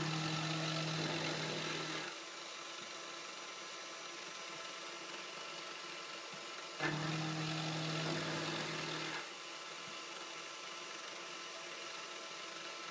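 Sieg X3 CNC mini mill's quarter-inch AlTiN-coated carbide end mill climb-milling 6Al-4V titanium at a quarter-inch depth of cut. The cutting sound, a steady low hum, comes in two passes of about two seconds each, one at the start and one about seven seconds in, with a steady hiss running between them.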